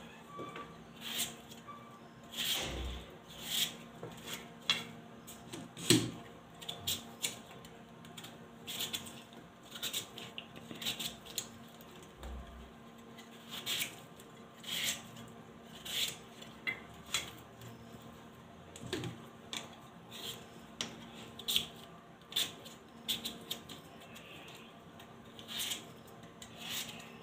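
Peeled raw potatoes being cut into fries: short slicing, rasping strokes at an irregular pace, about one or two a second.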